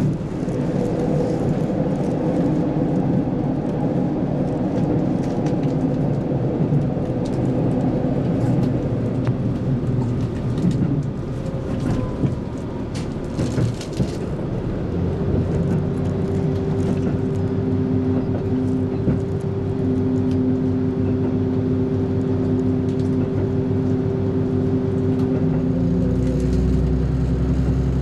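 Diesel passenger train heard from inside the carriage while running, a steady rumble and whir of engine and wheels on the rails. About halfway through, a steadier engine hum with several held tones sets in over the running noise, shortly after a few brief clicks.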